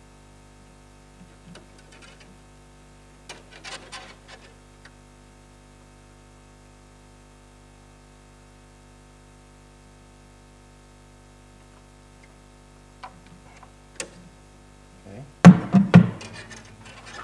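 Faint clicks and small rattles of a steel-wire push rod and 3D-printed plastic parts being handled, over a faint steady drone. Near the end comes a loud cluster of knocks and scrapes lasting about a second as the wire is worked against the plastic wing.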